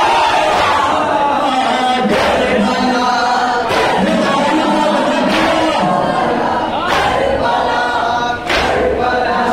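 A noha sung by a male reciter over a microphone, with a crowd of men singing and chanting along. Their hands beat their chests together in matam, a slap landing about every second and a half.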